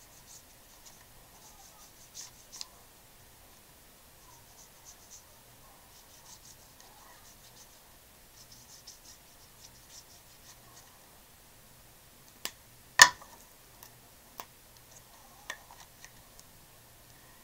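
Faint, soft scratching of a water brush pen's bristles stroking watercolor onto sketchbook paper, in short patches. A few light clicks and taps break in, the sharpest about two-thirds of the way through.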